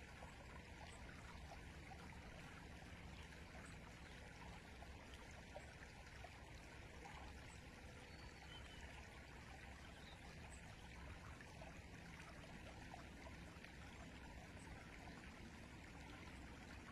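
Faint, steady flowing river water, an even rush without breaks.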